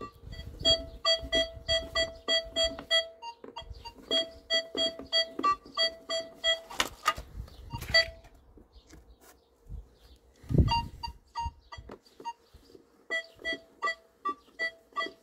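Nokta Makro Legend metal detector sounding its target tone in runs of short electronic beeps, about three a second, as a coin target passes under the search coil. The beeps alternate between a lower and a higher pitch, and there is a single knock about ten and a half seconds in.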